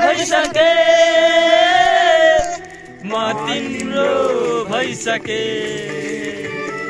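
A group of young men singing together, with a long held note for the first two and a half seconds, a short break near three seconds, then the singing picks up again.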